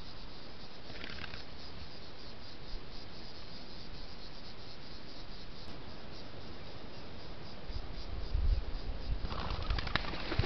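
Bushveld waterhole ambience from a field camera: insects chirping steadily as faint, evenly repeated high ticks over a hiss. In the last few seconds a low rumble and rustling rise.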